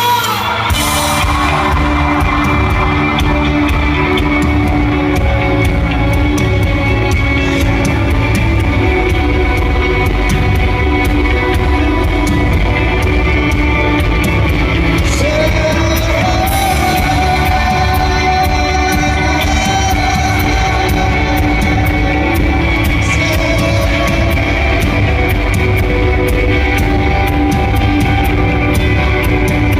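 Rock band playing live with a sung lead vocal, loud and steady, heard from the audience in a large arena hall.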